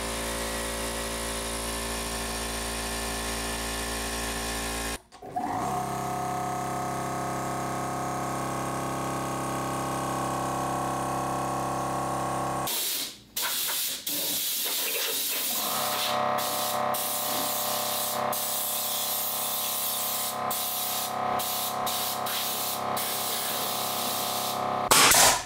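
Air compressor motors running steadily, in three sections that cut suddenly one to the next, each with its own steady hum, with a few sharp clicks in the last section.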